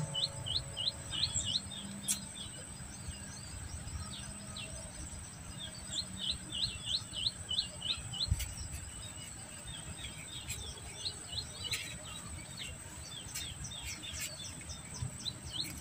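A bird calling in runs of short, quick chirps, about three a second, that stop and start again several times, over a steady high insect buzz.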